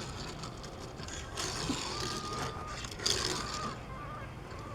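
Die-cast Hot Wheels '71 Datsun Bluebird 510 wagon pushed across a surface, its wheels scraping and skidding in short hissing bursts, about a second in and again around three seconds in.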